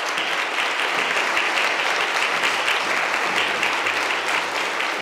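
Audience applauding steadily, a dense clatter of many hands clapping that stops abruptly at the end.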